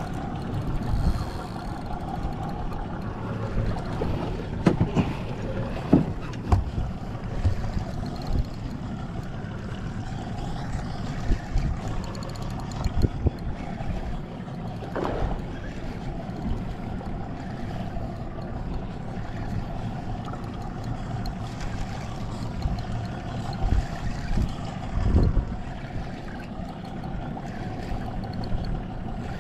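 Steady hum of a boat's motor under wind and water noise on an open deck, with a few short sharp knocks along the way.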